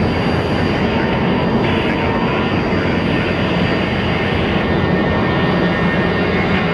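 Boeing 737 jet engines running, a loud, steady rush of engine noise with a thin high whine held through it.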